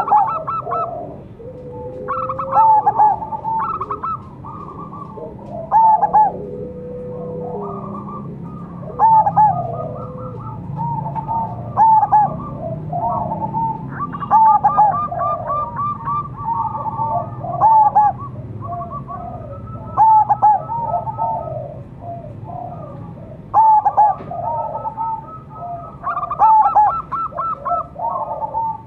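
Zebra dove (perkutut) cooing: a loud phrase of staccato coo notes every two to three seconds, some phrases ending in a quick run of short notes. Under it runs a low, steady background hum.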